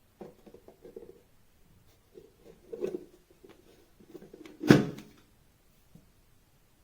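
Handling of a stainless steel mini electric travel kettle: a series of light knocks and rattles, then one loud sharp clack a little past the middle.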